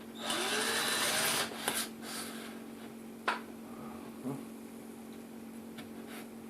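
Drill bit boring into a broken headphone plug jammed in a tablet's 3.5 mm jack: the drill runs for about a second near the start, its motor speeding up, then stops. A few light clicks follow, with one sharp click about three seconds in.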